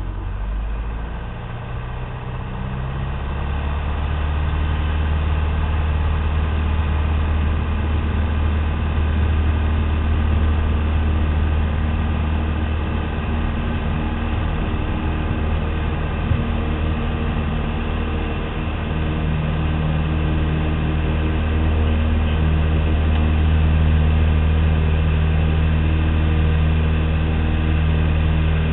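Piper Cherokee's piston engine and propeller running steadily. About two seconds in, the engine speeds up and grows louder.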